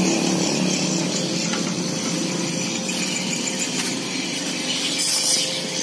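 Stick arc welding on a motorcycle frame: a steady crackling hiss from the arc, briefly louder about five seconds in.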